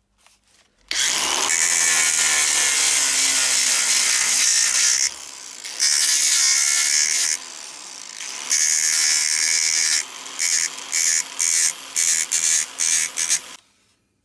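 A power tool working on metal with a loud, harsh, high-pitched running sound. It starts about a second in, cuts out twice for a moment, and then runs in a string of short quick bursts before stopping near the end.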